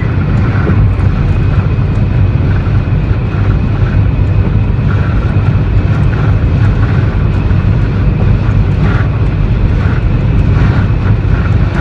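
Steady road and wind noise of a car driving at highway speed, heard from inside the cabin: a constant low rumble.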